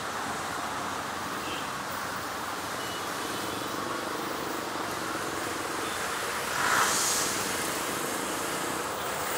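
Diesel locomotive hauling a long container freight train approaching, its engine and wheels making a steady rumble. A brief louder burst of hiss comes about seven seconds in.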